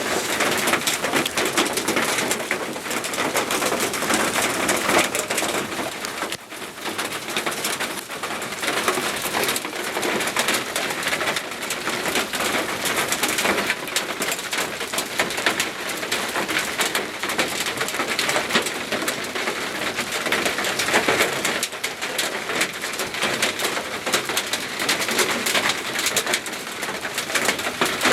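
Hailstones pelting down, a dense continuous clatter of countless small impacts.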